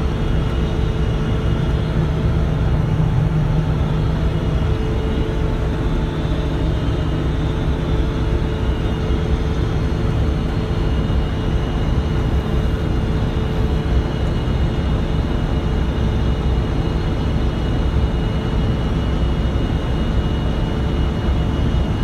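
Combine harvester engine and threshing machinery running at a steady drone, with a few steady whining tones over a low rumble. A tractor is driving alongside.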